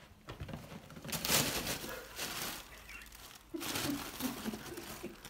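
Crinkly rustling as a kitten scrambles about by a plastic bag, in two spells: a louder one about a second in and a second one about three and a half seconds in.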